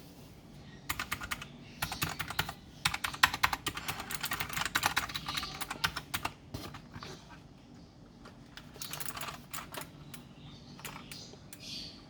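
Typing on a Keychron K4 mechanical keyboard with clicky optical blue switches. Fast runs of key clicks fill the first six seconds or so, then a few sparser keystrokes follow.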